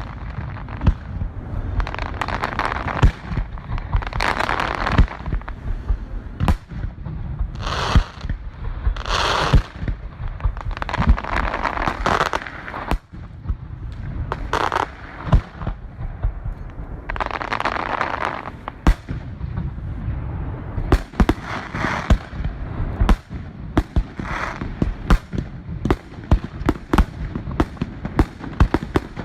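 Aerial fireworks going off in rapid succession: a steady barrage of sharp bangs and booms, with bursts of crackling every few seconds.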